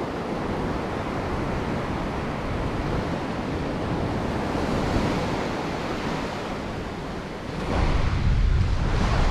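Surf breaking and washing up a sandy beach, with wind noise on the microphone; a louder low rumble sets in near the end.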